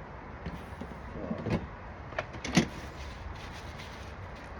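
A few short knocks and clicks from objects being handled, the loudest about two and a half seconds in, over a steady low background hum.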